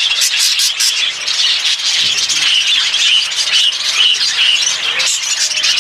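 A flock of budgerigars chattering steadily in an aviary, with a quick run of sharp chirps in the first second.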